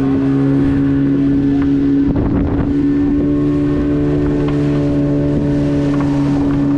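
Engine of a purse-seine fishing boat under way, running at a steady, even pitch, with wind buffeting the microphone and a brief rush of noise about two seconds in.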